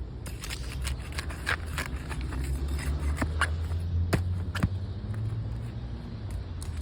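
Brittle, weathered asphalt shingles being worked loose and removed, giving a handful of sharp cracks and snaps with some scraping, over a low steady rumble.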